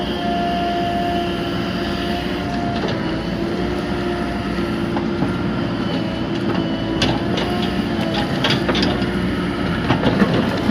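JCB excavator's diesel engine and hydraulics running under load, a steady pitched drone that rises and falls a little as the machine works. From about halfway, a scatter of knocks and clatter as the bucket works the mix.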